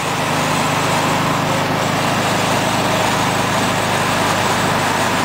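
Engine and road noise inside the cabin of an Alfa Romeo GTV cruising steadily, an even hum that holds the same pitch throughout.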